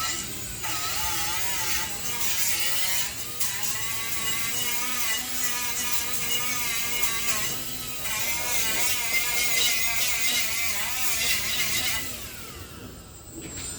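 Handheld electric power tool running against metal, its whine wavering up and down in pitch as the load changes, then easing off and dropping away near the end.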